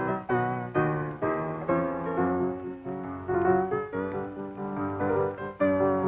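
Piano music: notes and chords struck in a steady flow, each dying away as the next comes in.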